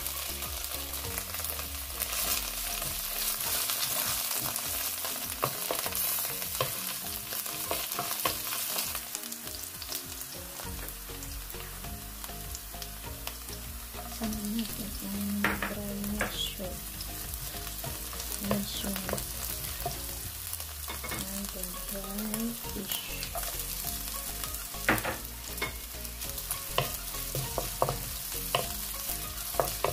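Sliced dried mushrooms sizzling in hot oil in a nonstick wok, with a steady frying hiss throughout. A wooden spatula stirs and knocks against the pan, giving scattered sharp clicks that come more often in the second half.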